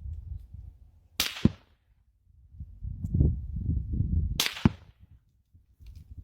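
Two rifle shots fired from 200 yards, heard from downrange, about three seconds apart. Each is a sharp supersonic bullet crack followed about a quarter second later by the duller muzzle report arriving from the distant rifle. A low rumble runs between the shots.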